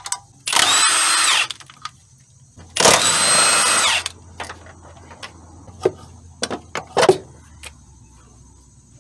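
Cordless Milwaukee M18 impact wrench spinning out the 14 mm engine-mount bolts in two bursts of about a second each, its whine dropping in pitch as it stops. Then a few short knocks and clicks.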